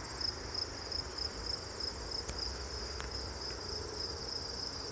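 Crickets chirping in a steady, even pulse of high chirps, with a low steady rumble underneath.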